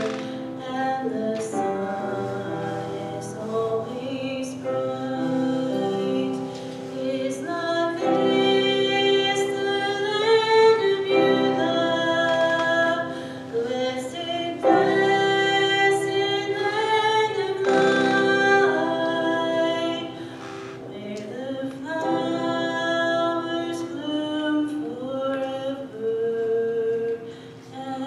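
A woman singing solo into a microphone, accompanying herself on a grand piano.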